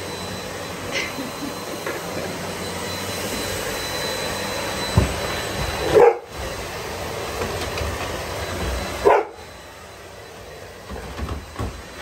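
Vacuum cleaner running steadily, with a rottweiler barking twice at it, about six and nine seconds in. After the second bark the vacuum's sound is quieter.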